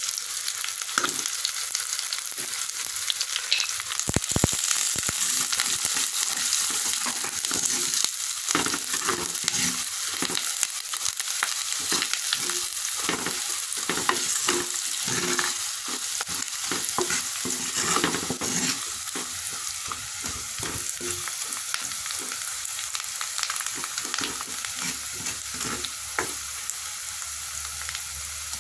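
Onions and greens sizzling in hot oil in a clay pot, with a ladle stirring and scraping against the pot through most of it. The stirring thins out near the end while the sizzle runs on.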